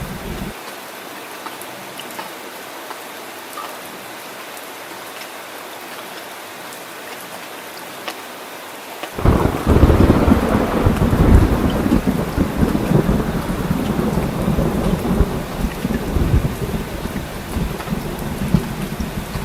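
Heavy rain falling steadily. About nine seconds in, a loud thunderclap breaks into a long, deep rolling rumble that eases near the end.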